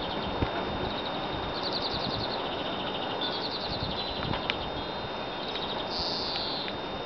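Small songbirds singing short, rapid, high trills several times over a steady outdoor background hiss, with a couple of light clicks in between.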